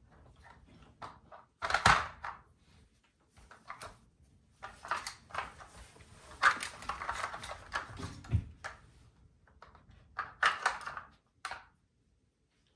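Plastic Dog Brick puzzle feeder clattering on a tile floor as a puppy noses at its sliding blocks and bone-shaped lids for kibble: irregular clicks and knocks in several bursts, the loudest about two seconds in and again around six to seven seconds in.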